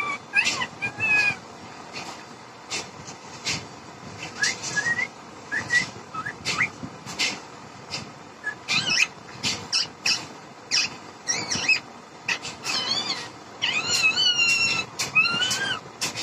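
Rose-ringed parakeet whistling: short rising and falling whistles, with longer wavering whistles in the second half, among many sharp clicks.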